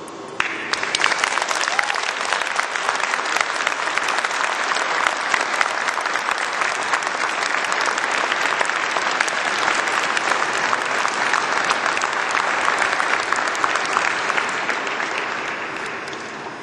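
Audience applauding. The clapping starts suddenly about half a second in, holds steady, and fades out near the end.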